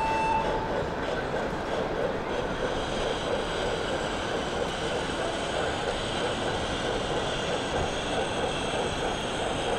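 Steady background din of a busy exhibition hall, a dense even hubbub with no clear words. A steady high whistle tone cuts off about half a second in.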